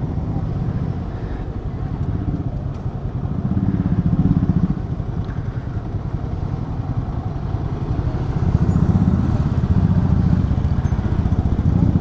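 Motorcycle engine running while riding. Its note swells about four seconds in and again through the second half.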